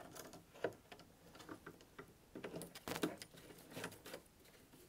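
Faint, irregular clicks and small metallic scrapes of a hand screwdriver driving a short screw into a metal bracket.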